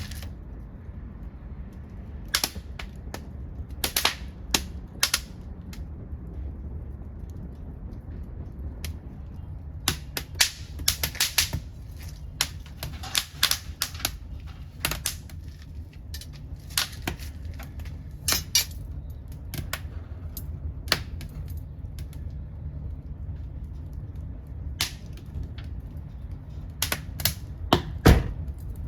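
Wood from an old futon chest burning in a secondary-combustion wood-gas stove: irregular sharp crackles and pops, some in quick clusters, over a steady low rumble, with one louder pop near the end.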